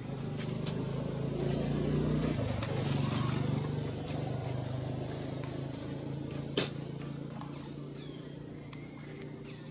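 Engine of a passing motor vehicle, a steady low hum that swells over the first couple of seconds and then slowly fades. A sharp click about six and a half seconds in, and a few faint high chirps near the end.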